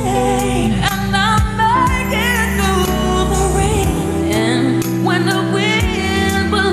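Female pop singer singing live with a band, her voice sliding through ornamented runs with vibrato over sustained bass notes and regular drum hits.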